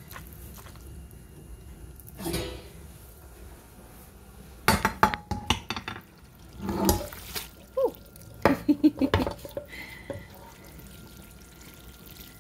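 Glass casserole dish clinking and knocking as it is set down and handled on a countertop, in three short clusters of sharp knocks in the middle.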